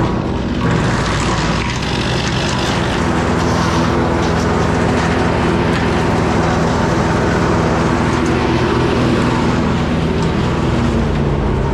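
An engine running steadily at a constant speed, settling to an even pitch about three seconds in.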